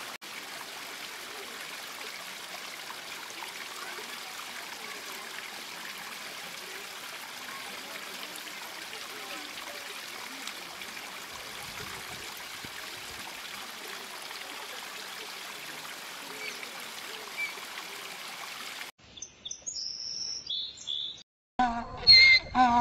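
Steady trickling water with a few faint bird chirps. About 19 s in, after a cut, come high chirps, a brief gap, then loud repeated pitched calls near the end.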